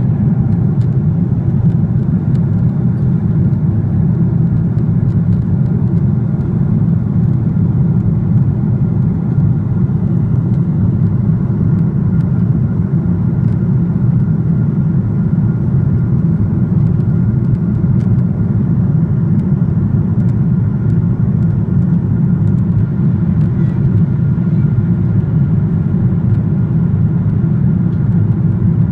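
Airliner cabin noise: a steady low rumble of engines and airflow heard from inside the cabin, with a faint steady tone above it.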